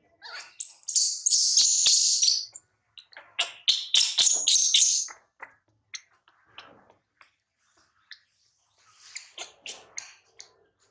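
Newborn monkey crying in high-pitched, chirp-like squeals. There are two loud, long bouts in the first five seconds, then fainter cries near the end.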